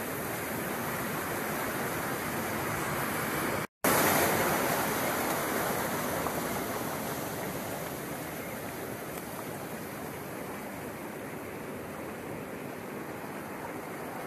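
Ocean surf washing over and around the boulders of a rocky shore, a steady rushing. It cuts out for an instant nearly four seconds in, comes back louder, then slowly eases.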